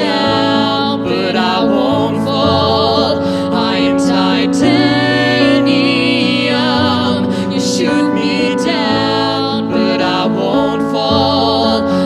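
A man and a woman singing a pop song together into microphones, holding long notes with vibrato over a sustained synth-like backing of low chords.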